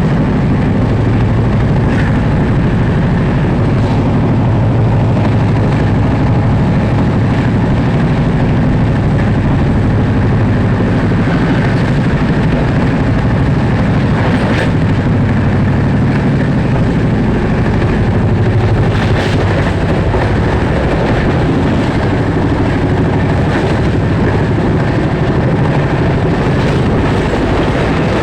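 Passenger train running at high speed, about 135 km/h: a steady, loud rumble of wheels on rail with a few faint clicks.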